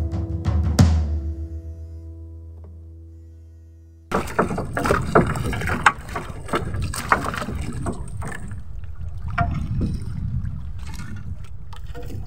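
Background music with drums fading out, cut off about four seconds in. Then a fishing net is hauled in by hand over the side of a small boat, with irregular splashes, water dripping and knocks.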